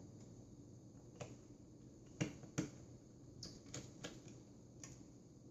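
Light, scattered clicks and taps from handling a small screw and the hard drive's metal parts by hand, about seven in all, the two loudest close together a little past two seconds in.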